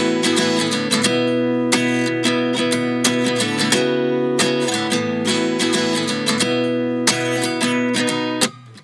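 Background music: a song's instrumental intro of strummed acoustic guitar, dropping out briefly near the end.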